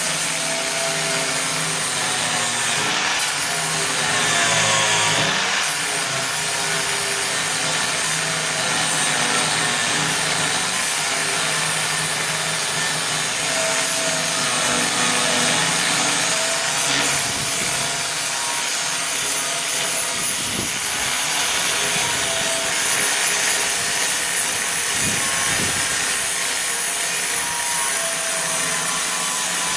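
Grinder grinding down weld beads on a car's front bodywork: a steady, loud grinding noise with a whine that wavers in pitch.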